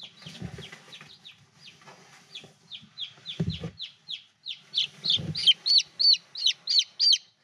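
Five-day-old chicks peeping: a run of short, falling peeps, a few a second, that grow louder and quicker in the last few seconds. Two dull thumps come about three and a half and five seconds in.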